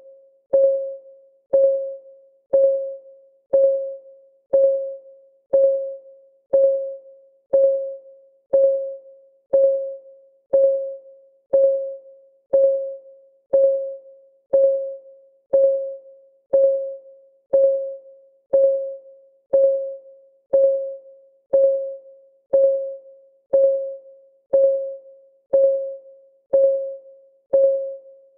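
Clock ticking, one short pitched tick about every second, each ringing briefly and fading, in a steady even rhythm.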